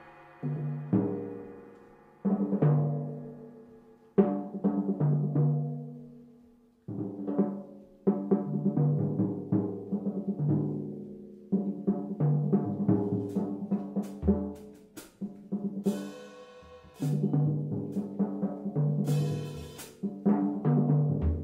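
Tuned drums playing short rhythmic phrases of pitched strokes, each phrase dying away before the next. The phrases grow denser in the second half, with a few bright crashes.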